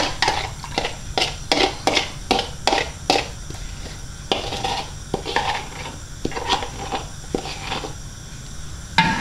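Metal cutlery scraping and tapping ketchup out of a white ceramic bowl into a saucepan: a quick run of clinks and scrapes, about three or four a second, that thins out after about three seconds.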